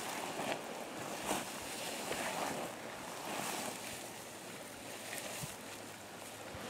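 Steady wind hiss on the microphone, with a few faint soft ticks.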